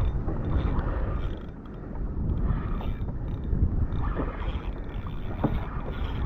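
Wind on the microphone and choppy sea water washing against a kayak hull, with a couple of faint knocks.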